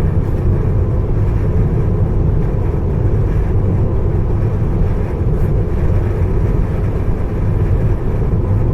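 Steady low rumble of road and wind noise from a Tesla driving at highway speed in strong, gusting wind.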